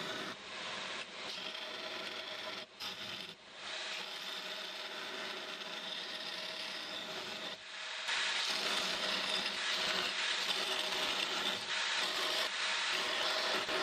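Narrow belt grinder running while a flat piece of steel is pressed against the abrasive belt to grind a knife profile. The grinding briefly drops twice near the start and grows louder from about eight seconds in.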